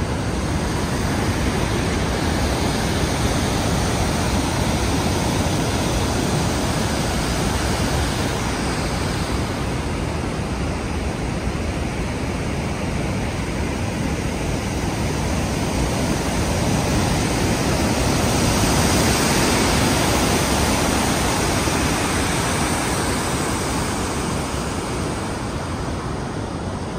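Steady rushing of water pouring over the New Croton Dam spillway and churning in the gorge below, swelling a little about two-thirds of the way through, with wind buffeting the microphone.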